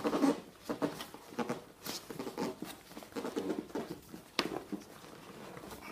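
Rustling, scraping and light knocks as saddle straps, webbing and fittings are handled and worked into place, with one sharp click about four and a half seconds in.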